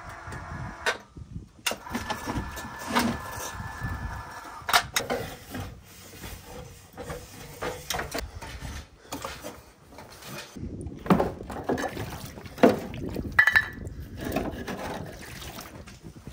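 Irregular knocks and clatter from hands-on building work: steps on an aluminium ladder and hollow clay bricks being handled.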